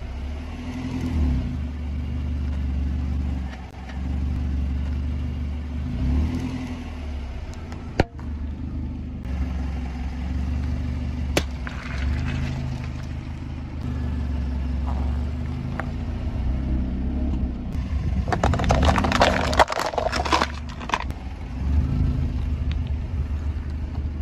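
A car's engine running low as it creeps forward, its tyre rolling over and crushing objects on asphalt. A few single sharp clicks sound in the first half, and a dense burst of crackling crunches runs for a few seconds about 18 seconds in.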